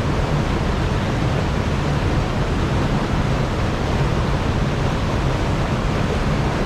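Water rushing steadily over an overflow weir: a constant, even roar with no breaks.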